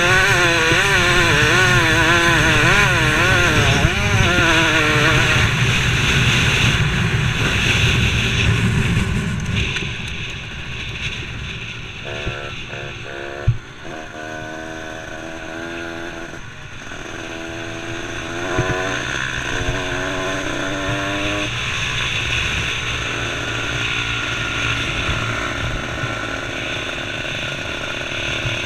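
125cc two-stroke motocross bike engine at racing speed, heard close up with wind rushing over the microphone. For the first few seconds its pitch swings rapidly up and down; then it runs lower and steadier, with short breaks. A single sharp knock comes about thirteen seconds in.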